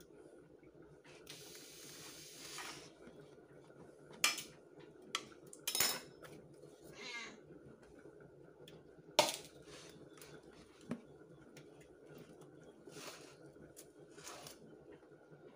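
Raw pork pieces being handled and moved between a plastic tub and a metal bowl, with scattered clinks and knocks of the bowl. A brief wavering high-pitched sound comes about halfway through.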